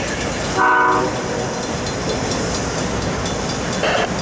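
BNSF diesel locomotive's multi-chime air horn sounding one short blast about half a second in, over the steady running sound of the departing freight train.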